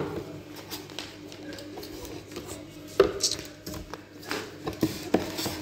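Scattered knocks and rustles from hands handling a cardboard box and the plastic-wrapped roti maker packed inside it. There are sharper knocks at the start and about three seconds in.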